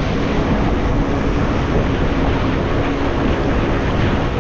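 Wind buffeting the microphone and the sea rushing past a sailing catamaran's hulls, a loud, steady rumble, with a faint steady hum underneath.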